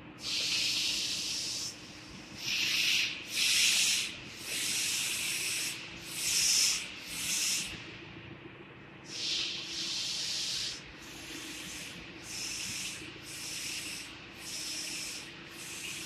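About a dozen short bursts of hissing, each half a second to a second and a half long, starting and stopping sharply, with a longer pause about halfway through.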